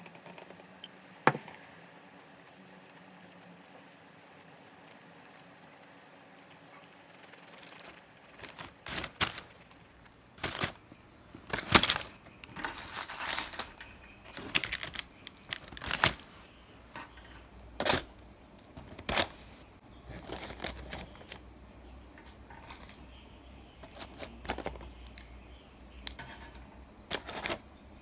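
Small objects being handled at close range: a single sharp click about a second in, then, from about a third of the way in, a string of irregular clicks and knocks with brief crinkling rustles.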